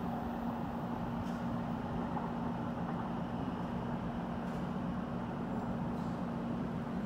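NJ Transit PL42AC diesel locomotive approaching from a distance: its engine gives a low, steady drone over a constant rumble.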